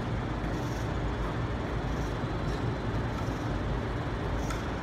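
Steady low rumble of background noise, with faint soft swishes every second or so during repeated jumps while holding gymnastic rings.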